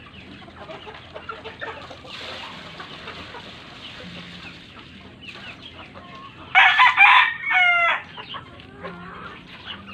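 Chickens clucking around the pen, with a rooster crowing loudly about two-thirds of the way through.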